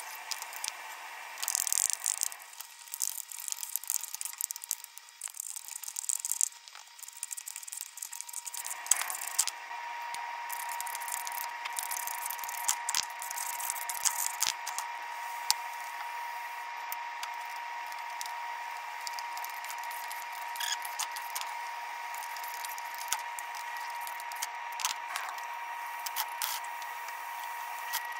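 Diced vegetables and ground protein frying in a skillet, crackling, with scraping and clicking as they are stirred and tossed in the pan. From about nine seconds in, a faint steady whine runs underneath.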